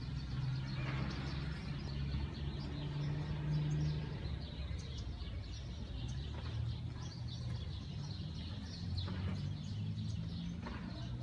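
Scattered short bird chirps over a steady low background hum.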